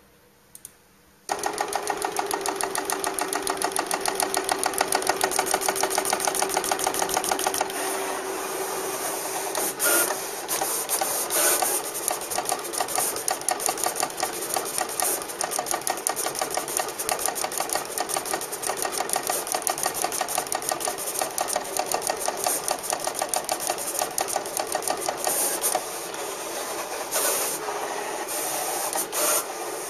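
Graphtec CE-5000 cutting plotter drawing with a ballpoint pen: its motors drive the pen carriage and paper in a rapid, rhythmic mechanical chatter. It starts suddenly about a second in, with a steady hum beneath it for the first ten seconds.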